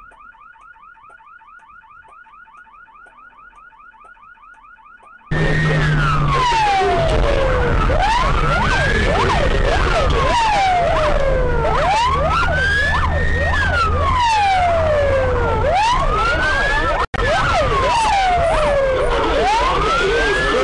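A faint, rapid electronic warbling beep, then a sudden switch about five seconds in to a loud police siren wailing. It rises and falls slowly, about once every four seconds, with other siren tones overlapping and a steady engine hum underneath.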